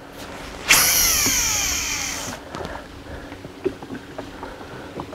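Baitcasting reel spool spinning out as a jig is cast: a sudden whirring whine about a second in that falls in pitch as the spool slows, dying away after about a second and a half. A few faint clicks follow.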